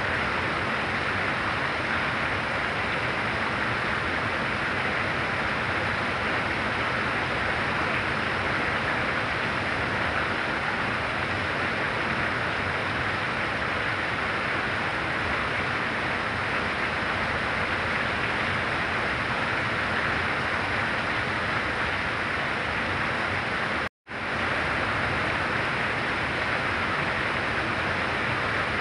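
Heavy rain falling in a steady, even downpour. The sound cuts out for a split second about 24 seconds in, then resumes unchanged.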